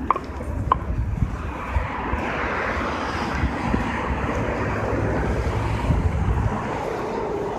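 City street traffic: road noise from passing vehicles swells through the middle and eases near the end, over low wind buffeting on the microphone.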